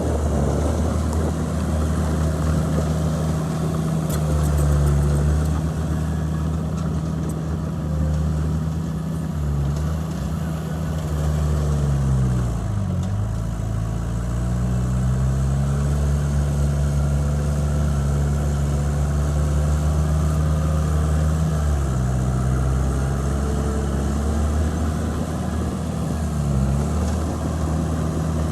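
A bulldozer's heavy diesel engine running steadily while the machine works. Its pitch sags and recovers several times, most deeply about halfway through.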